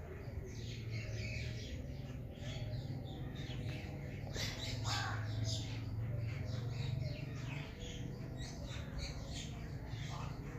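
Many small birds chirping and calling rapidly and overlapping, over a steady low hum.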